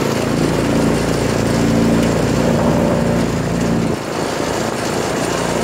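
A go-kart's small engine running as the kart drives along, with a brief dip in the engine note about four seconds in.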